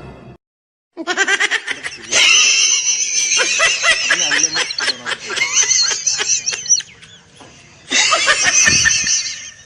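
A person laughing hard in quick repeated bursts, starting about a second in, easing off, then breaking into a second bout near the end.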